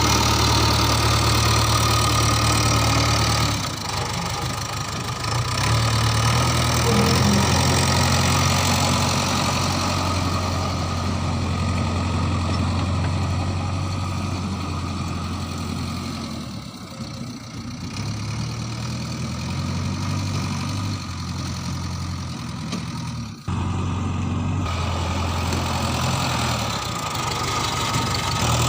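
Heavy diesel engine running steadily at low revs, close by, with a few brief drops in level.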